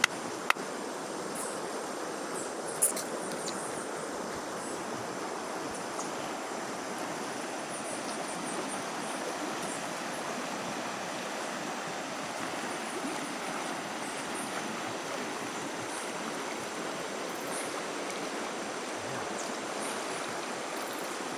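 Steady rush of flowing water, with two short sharp clicks in the first few seconds.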